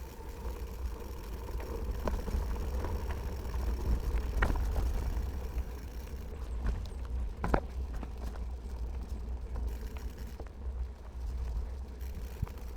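Bicycle being ridden fast: a steady low rumble of riding noise, with several short sharp knocks and rattles, the loudest about seven and a half seconds in.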